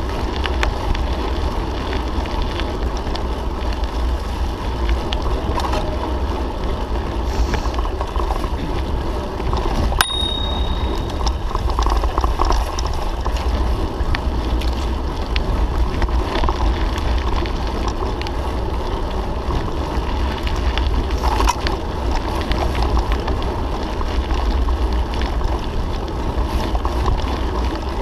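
Mountain bike riding over a bumpy dirt forest trail, heard from a handlebar-mounted camera: steady wind rumble on the microphone with the rattle and clatter of the bike over the ground. A single sharp metallic ping rings briefly about ten seconds in.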